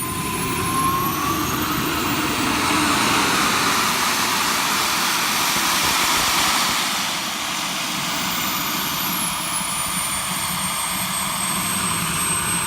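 Small gas turbine of a radio-controlled F-104 Starfighter model jet running: a steady rushing roar with a thin high-pitched whine. The whine glides down in pitch about nine seconds in and then holds steady.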